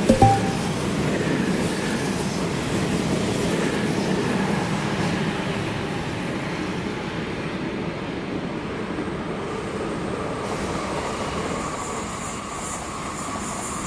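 Passenger train passing close by, a steady rumble of wheels on the track that eases a little after about six seconds. A short, loud, sharp sound comes just after the start.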